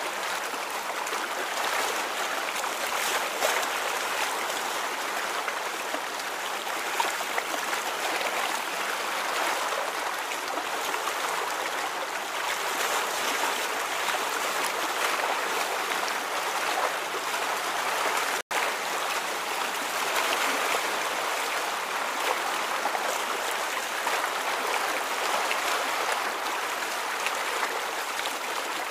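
Running water trickling and babbling steadily, with a momentary break in the sound about two-thirds of the way through.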